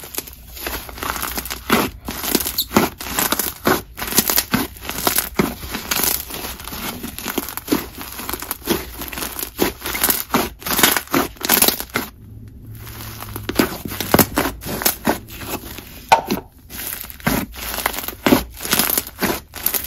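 Hands stretching, folding and squeezing a clay fizz slime (buttery clay slime mixed into snow fizz): a dense, irregular sizzly crackle of small pops as the slime is inflated and pressed, with a short pause about twelve seconds in.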